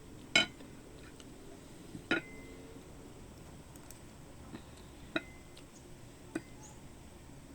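Cutlery clinking against a plate or dish a few times while eating: four separate sharp clicks spread out over several seconds, some with a brief ring.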